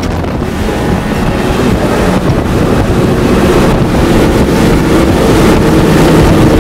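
Rigid inflatable boat (RIB) under way at speed, its engine running over rushing water, with wind buffeting the microphone.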